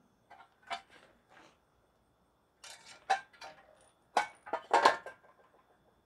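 Loose engine parts being handled during a small Honda GX160 engine teardown: the removed recoil starter cover and small metal parts such as bolts knocking and clinking against each other and the concrete. The sounds come as a row of separate short clatters, loudest about three and five seconds in.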